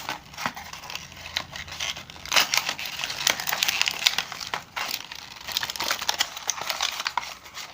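Packaging of a small USB hub being opened by hand: crinkling and rustling of the wrapping, with many small clicks and crackles that come and go.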